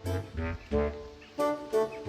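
Background music led by a saxophone or brass melody over a bass line, in short rhythmic phrases.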